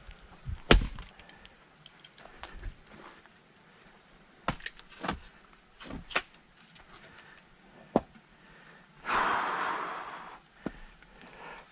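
Axe striking a log to split firewood, one sharp loud blow about a second in, followed by several lighter knocks of split wood pieces being handled. Near the end comes a long breathy exhale that fades out.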